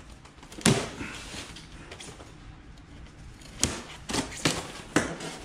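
A small knife slitting along the seam of a polystyrene foam packing box, with faint scratching and the foam knocking and clicking as it is worked apart: one sharp knock about a second in, then several more near the end.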